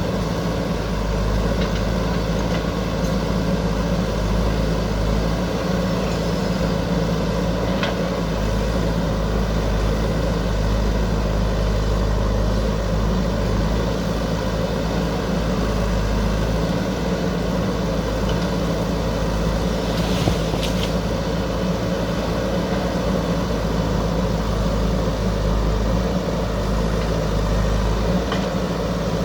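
JCB backhoe loader's diesel engine running steadily, with a couple of faint brief clinks.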